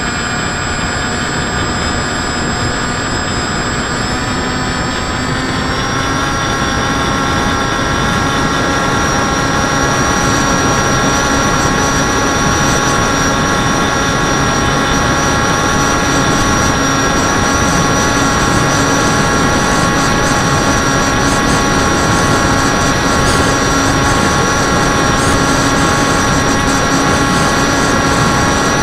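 FPV model aircraft's motor and propellers heard through its onboard Mobius camera, a steady whine over rushing noise. The whine steps up in pitch about five seconds in as the throttle comes up, then holds steady.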